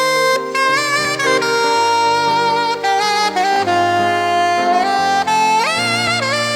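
Slow instrumental music: a single lead melody with notes that slide and scoop into pitch, over held chords beneath.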